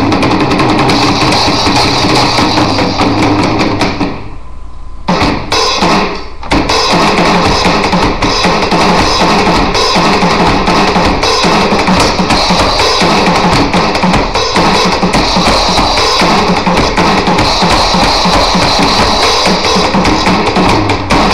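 Electronic drum kit played loudly with sticks, heard through its sound module's output. The playing drops away briefly about four seconds in, then carries on.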